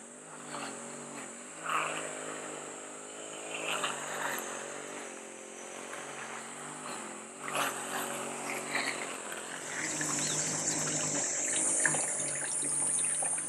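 Steady engine drone with a pitched hum, under a high steady buzz that grows louder over the last few seconds, and a few sharp clicks.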